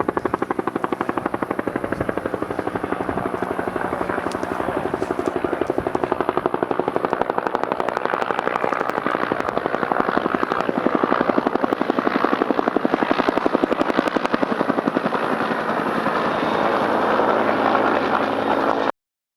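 Helicopter flying close, its rotor beating in a fast, even rhythm. It cuts off suddenly near the end.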